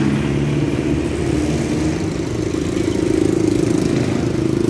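A vehicle engine idling steadily close by while the vehicle is stopped, growing a little louder about halfway through.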